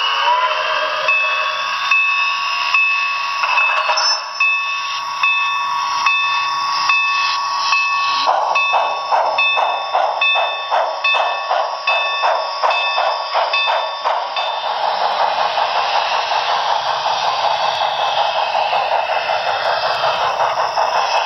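Sound of the Paragon3 sound system in an HO scale Broadway Limited C&O L-1 Hudson steam locomotive, played through the model's onboard speaker. A locomotive bell rings in regular strokes over steam chuffs. About two-thirds of the way through, the bell stops and the chuffing becomes a steady fast running beat.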